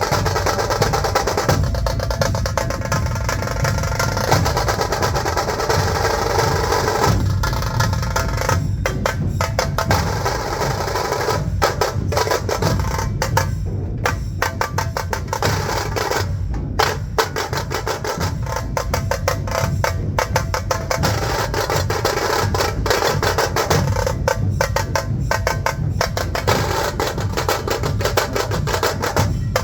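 Dhol-tasha pathak drumming: large dhol drums beating a heavy pulse under rapid, dense tasha stick strokes, played loud and without a break.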